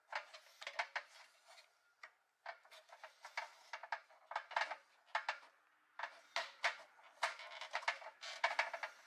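Hands handling a toy dump truck's wheel on its axle: a steady run of small clicks, taps and rubbing scrapes as the tyre and hubcap are pressed and turned.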